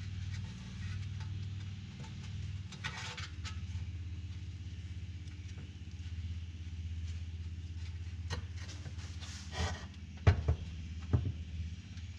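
Metal parts of a car quarter-window assembly being handled and fitted together on a workbench: scattered clicks and knocks, the loudest about ten seconds in, over a steady low hum.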